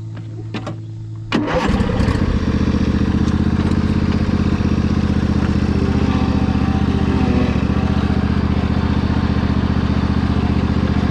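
Craftsman riding mower's engine running: a steady hum at first, then much louder from about a second and a half in, running steadily at the higher level.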